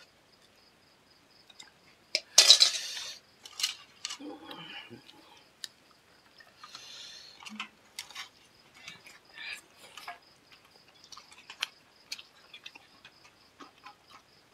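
Close-miked eating sounds from a meal of curry and rice eaten by hand: scattered clicks and clinks of plates and food being handled, with one louder noisy burst about two seconds in. A faint steady high whine sits underneath.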